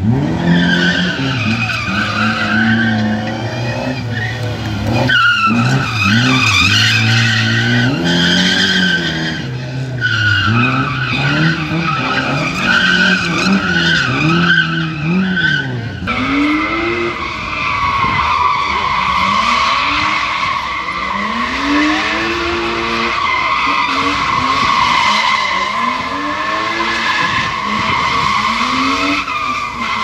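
Gymkhana car engines revving hard with tyres squealing as the cars slide around cones. About halfway through the sound changes abruptly to a run where the engine rises and falls about every two seconds under a steady tyre squeal.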